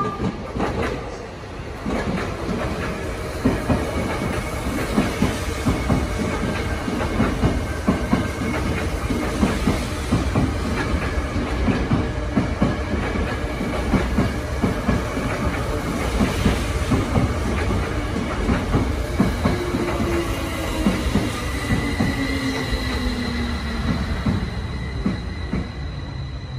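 Tokyo Metro Tozai Line electric commuter train running into the station: wheels clacking rhythmically over the rail joints, with a falling motor whine over the last several seconds as it brakes.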